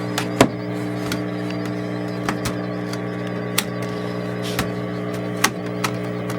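A steady electrical hum, with scattered light clicks and taps from small parts and tools being handled during a laptop repair.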